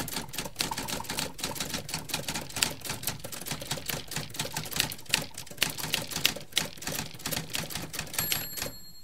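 Typewriter keys clacking in a rapid, uneven stream of sharp clicks, with a short high ring like a carriage bell near the end.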